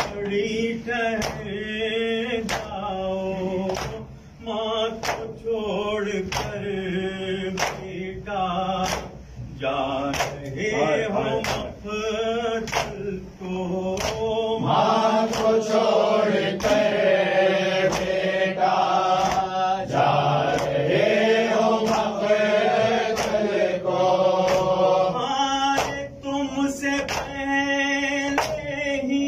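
A group of men chanting a Muharram noha (Urdu lament) in unison, kept in time by sharp slaps of matam, hands striking chests, about three beats every two seconds. The chanting swells louder and fuller for about ten seconds midway.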